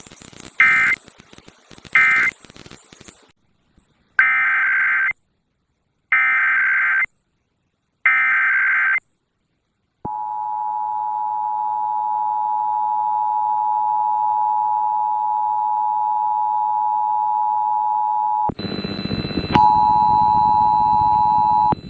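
Emergency Alert System data and attention tones over broadcast audio. First come three short digital data chirps, the end-of-message code of the previous alert. After a gap come three one-second warbling data bursts, the SAME header of the next alert, and then the two-tone attention signal held steady for about eight seconds. Near the end the attention tone is interrupted by a noisy break with a higher tone, then resumes briefly.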